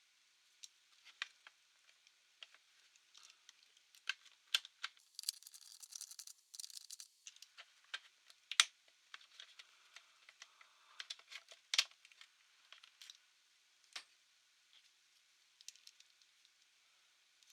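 Scattered light clicks and taps of small parts being handled on a laptop being taken apart, with a short scraping rustle about five seconds in.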